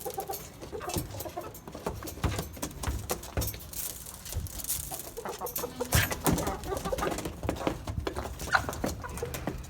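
Backyard hens clucking, mixed with many short clicks and knocks.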